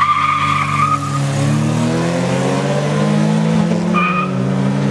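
Car launching hard with its tyres squealing for about the first second, then its engine revving up steadily in pitch as it accelerates. Almost four seconds in the engine note drops, as at an upshift, with a short second tyre chirp.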